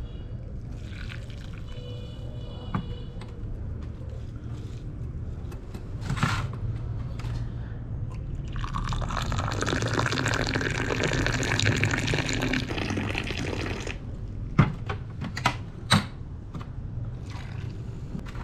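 Moroccan mint tea poured from a metal teapot into a small glass: a steady splashing pour for about five seconds in the middle, followed by three sharp clinks.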